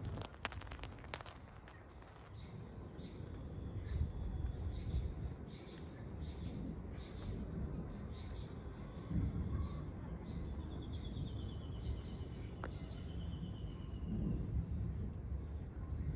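Distant thunder rumbling low in slow swells, with insects chirping in a steady pulse about twice a second. Near the middle a short falling trill sounds over the chirps.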